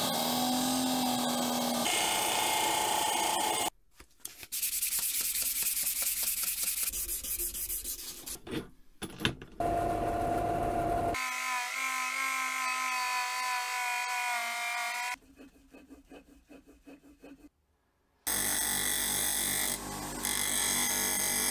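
Power-driven wheels working the steel of an antique screwdriver in a series of short cuts: a bench grinder's motor hum under the hiss of the wheel on steel, then a drill-press-driven wheel with a steady multi-tone whine, a quieter uneven stretch, and the grinder's hiss again near the end.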